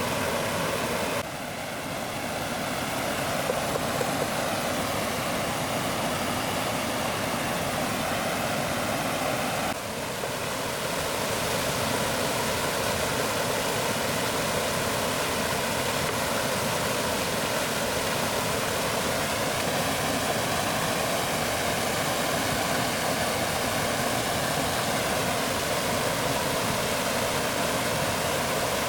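Steady rush of flowing water, such as a swollen stream. The sound drops abruptly in level about a second in and again about ten seconds in, then carries on evenly.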